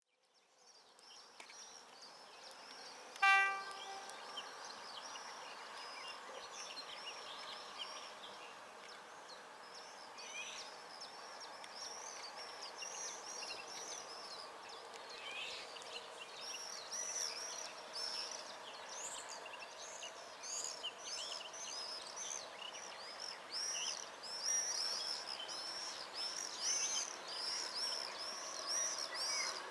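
Outdoor ambience of many birds chirping and singing, growing busier, with one short horn blast about three seconds in.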